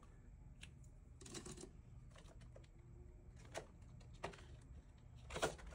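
Faint rustles and soft clicks of a small ring binder being handled: its plastic sleeves and paper pages turned over. The sounds come in scattered short bursts, the loudest near the end.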